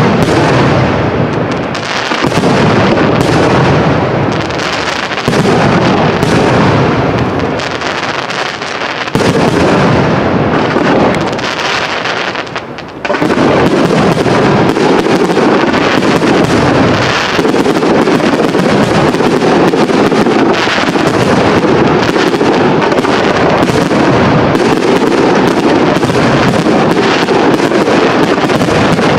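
Aerial firework shells bursting in a loud, dense barrage, bangs overlapping with no gaps between them. There is a brief lull about twelve seconds in, then the barrage resumes even thicker and unbroken.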